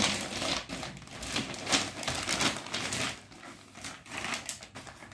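Plastic wrapping crinkling in a run of short rustles as a shrink-wrapped bundle of tent poles is pulled out of its cardboard box and laid down.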